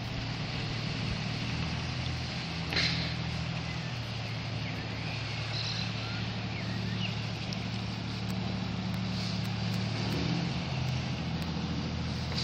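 Small powerboat engine running steadily as the boat passes on the river. One brief sharp knock comes about three seconds in.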